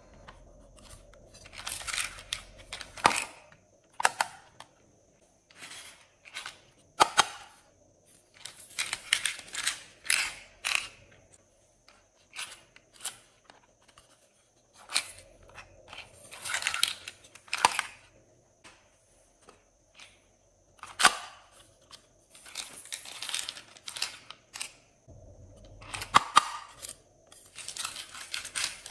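Small plastic cases snapping open and shut with sharp clicks, and star sequins and glitter being shaken out of them in short rattling, hissing pours onto slime in glass trays.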